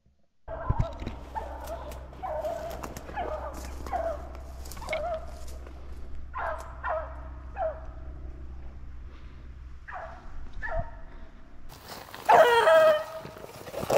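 Beagles baying on a rabbit's trail in a chase, a string of falling howling bays, about two a second at first and then more spread out. One loud, close bay comes near the end.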